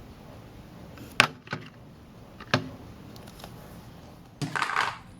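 Kitchen handling sounds as dough containers are swapped for a rise: three sharp clicks or knocks, the first the loudest, then a short rustling scrape near the end.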